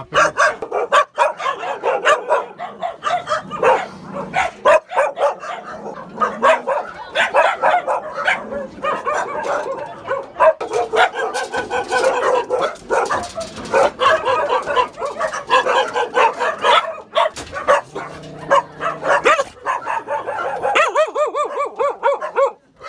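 Many caged dogs barking and yelping at once, short sharp calls mixed with longer wavering ones, overlapping without let-up.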